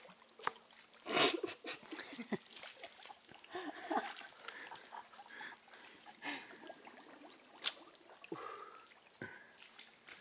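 Steady high-pitched drone of jungle insects, with a few short clicks and knocks scattered through it and a louder burst about a second in.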